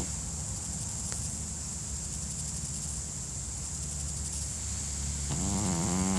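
Pekingese dog snoring: a quieter stretch of breathing, then one pitched snore of about a second near the end, rising slightly in pitch.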